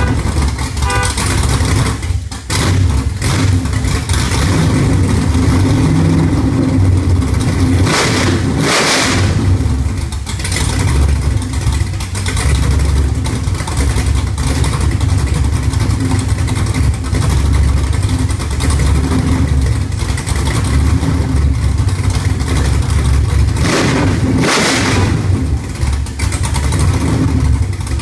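Chevrolet Camaro Z28's V8 engine running at a loud, slightly uneven idle just after being started, with two brief revs.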